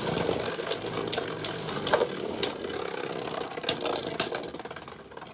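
Two Beyblade tops, Winning Valkyrie and Ace Dragon, whirring as they spin in a clear plastic stadium, with irregular sharp clacks as they collide. The whir grows quieter toward the end as the tops lose spin.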